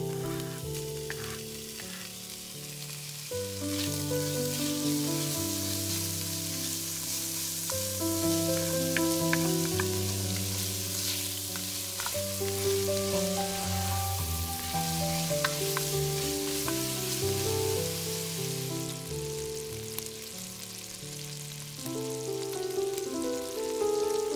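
Diced bacon sizzling as it fries in a Dutch oven, a steady hiss with scattered small pops of spattering fat that dies down near the end. Background music plays underneath.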